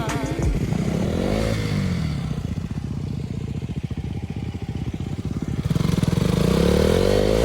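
Motorcycle engine working under load on a slippery, muddy uphill track, revving up and dropping back twice, louder near the end.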